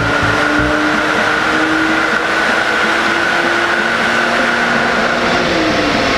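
BMW 330xi's 3.0-litre naturally aspirated straight-six running at full throttle on a chassis dynamometer during a power run, its pitch climbing slowly and steadily with the revs. Near the end the pitch falls away as the run ends.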